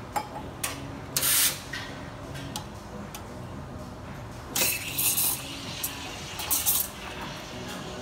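Espresso machine steam wand hissing in several short bursts of steam, with a milk pitcher held at the wand.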